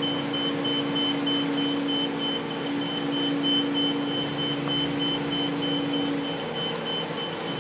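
Diesel engine of heavy equipment, likely the crane, running steadily, its hum shifting down in pitch near the end. Over it a high-pitched warning alarm beeps in a steady, evenly spaced series throughout.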